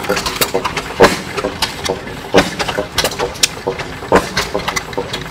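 Antique flywheel stationary gas engines running. Loud exhaust pops come at irregular spacing, about one a second, with lighter clicks and chuffs between, as several engines fire at once.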